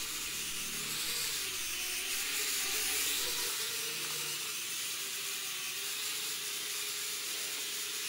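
Mini toy quadcopter's motors and propellers whirring in flight: a steady hiss with a faint whine that wavers up and down in pitch as the drone is steered around.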